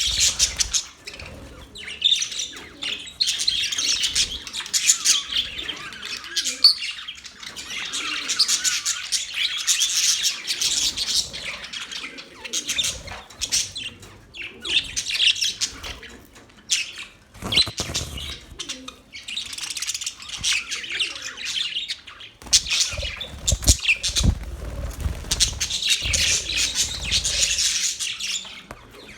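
Budgerigars chirping and chattering continuously, in spells of a few seconds with short lulls between them, with an occasional squawk. A few dull low thumps come in the second half.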